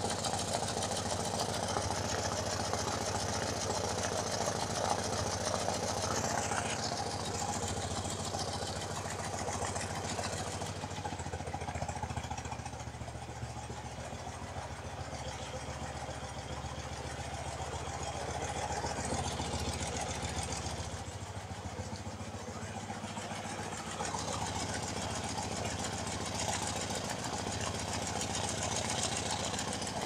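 BMW R90/6 air-cooled flat-twin pushrod engine running at idle with one rocker cover off and its valvetrain exposed. The owner hears a tick, tick, tick on this cylinder that the other side does not have: top-end noise left after a recent top-end refresh.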